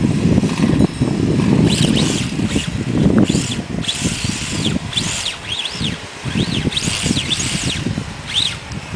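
Small RC drift car running on asphalt: a rough, grinding scrub of tyres and drivetrain, with a high motor whine that rises and falls over and over from about two seconds in as the throttle is blipped.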